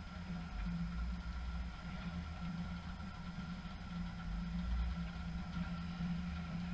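Steady low mechanical hum with faint high steady tones above it, unchanging throughout.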